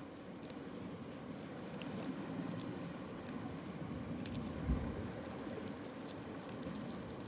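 Steel forceps plucking gooseneck barnacles off a rock: scattered light clicks and scrapes of metal on shell, with one dull thump a little over halfway, over a steady low rushing background.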